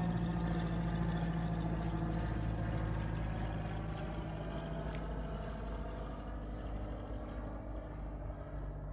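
Small propeller plane flying over, its engine and propeller drone steady and slowly fading, with a slight drop in pitch as it passes.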